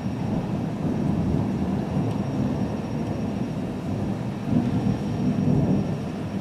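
Distant thunder rolling in a long, low rumble that swells again about two thirds of the way through.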